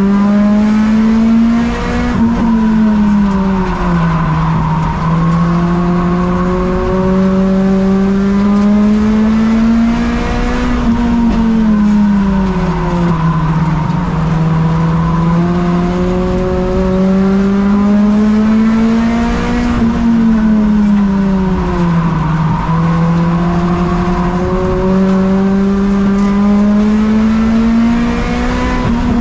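Tuner race car's four-cylinder engine, heard from inside the cabin while racing laps of an oval. Its note climbs slowly under throttle, then falls away as the driver lifts, about every nine seconds.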